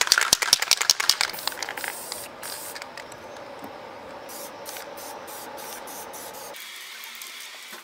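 Aerosol spray-paint can spraying green paint over a stencil: a steady hiss with short breaks. It opens with a quick run of loud clicks.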